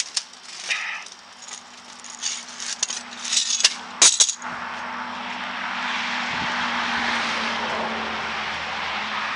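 Clicks and light metallic rattling as coiled steel bandsaw-mill blades and their tie straps are handled, with two sharp clacks about four seconds in. Then a steady rushing of passing road-vehicle noise sets in and swells.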